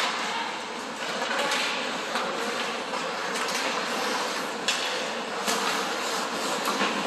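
Ice hockey play in a rink: skates scraping and carving the ice in a steady rush of noise, with scattered sharp clacks of sticks and puck.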